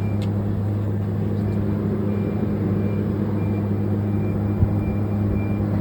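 Daihen CPXD-500 semi-automatic welding power source switched on and idling: a steady electrical hum.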